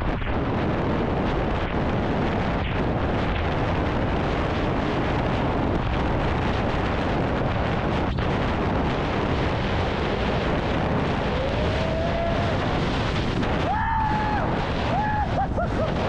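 Wind buffeting the microphone of a handlebar-mounted camera on an e-bike at high speed, a steady loud rushing rumble. A few faint, brief tones rise and fall over it near the end.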